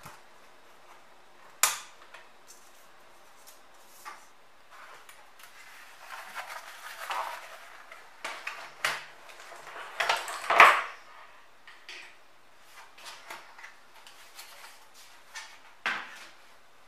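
Plastic housing of a Samsung N920 LCD monitor being taken apart by hand: a sharp snap of a bezel clip letting go, then scraping, knocking and rattling as the plastic panels are prised off and lifted away, loudest about ten seconds in, with one more click near the end.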